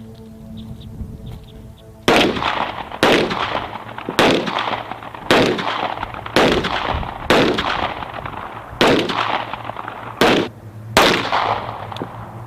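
M17 9 mm pistols firing on a range: about nine sharp shots roughly a second apart, starting about two seconds in, each followed by a short echo.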